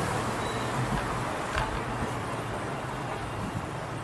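Steady city street and traffic noise with one sharp click about one and a half seconds in.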